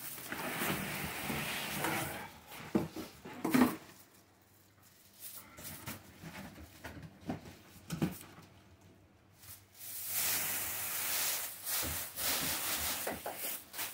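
Plastic packaging rustling and crinkling as it is handled and pulled off, with a few sharp knocks about three seconds in and again around eight seconds in.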